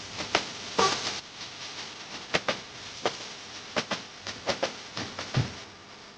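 Kitchen utensils knocking, clinking and scraping irregularly, a few strikes a second, as in stirring with a spoon or spatula in a cooking pot, with a short scrape about a second in and a duller thump near the end.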